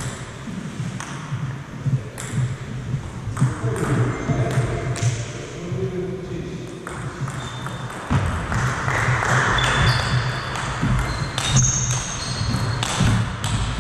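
Table tennis ball clicking off bats and the table during a serve and rally: sharp, separate ticks at irregular spacing. A low steady hum runs underneath.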